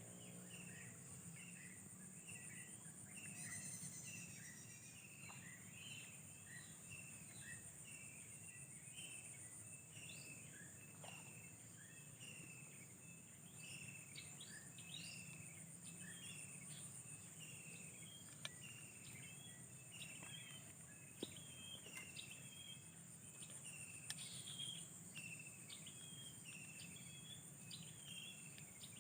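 Faint outdoor ambience: a steady high-pitched insect drone, like crickets, with many short, quick bird chirps repeating throughout.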